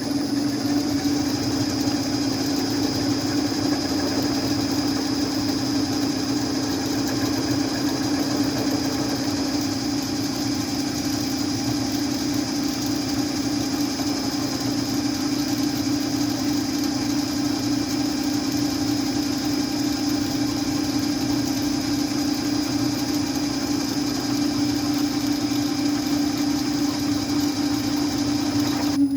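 Machine spindle running steadily, drilling out a stripped bolt hole in an aluminum Ford FE cylinder head: a steady mechanical hum with a high whine above it, starting about a second in.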